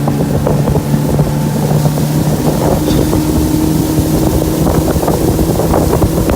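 Boat's outboard motor running steadily at speed, with wind buffeting the microphone.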